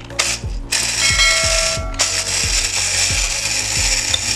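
Clockwork mechanism of a wind-up puppy house coin bank whirring: a dense, ratchety gear buzz that starts under a second in. Under it runs background music with a steady beat about three times a second.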